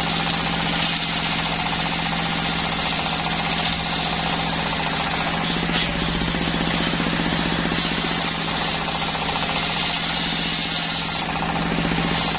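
Circular saw bench running steadily while sawing waru wood: a fast-pulsing machine hum with a bright hiss from the blade that swells and fades as it cuts.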